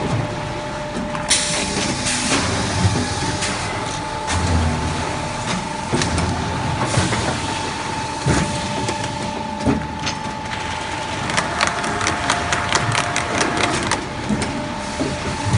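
Cooling-tower film fill forming machinery running: a steady whine over a hissing noise, with irregular clicks and knocks, more frequent near the end.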